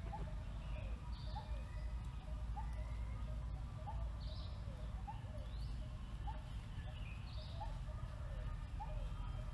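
Forest birds calling: a short rising note repeated about once a second, with higher sweeping calls over it every few seconds, above a steady low rumble.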